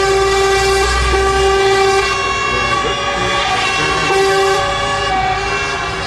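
Truck air horns, including American-style train horns, blowing long overlapping blasts in several pitches at once. Under them is the low rumble of diesel truck engines, heavier in the first second and a half, heard from inside a truck cab.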